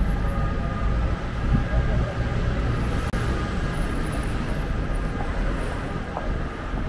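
City street traffic: a steady low rumble of cars and vans driving past.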